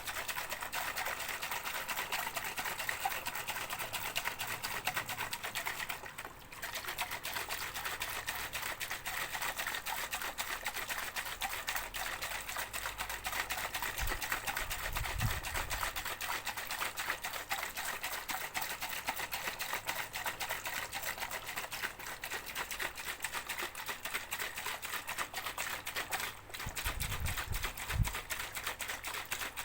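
A shaker with water inside being shaken continuously, a fast, dense rattle of quick strokes that breaks off briefly about six seconds in and again near the end. A few low thuds of handling come through about halfway and again near the end.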